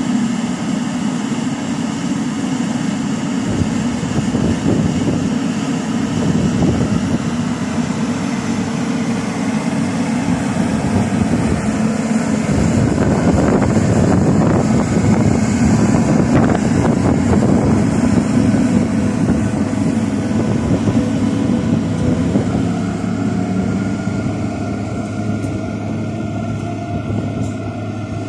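MÁV-START passenger coaches rolling past on the rails: a steady low rumble of wheels with a dense clatter, loudest about halfway through and easing off. A low steady hum sets in near the end.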